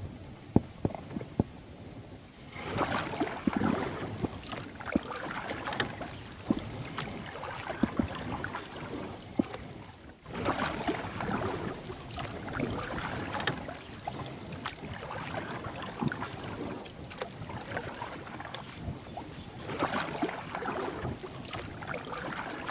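Paddle strokes and water splashing and sloshing against a small paddled boat, coming in uneven surges. A few sharp knocks fall in the first two seconds.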